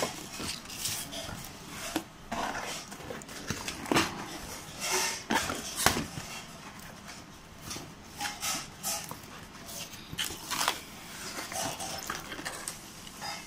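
Cardboard shipping box being opened with scissors: cutting at the tape, flaps pulled open and packing paper rustling, in a string of irregular short rasps, rips and knocks.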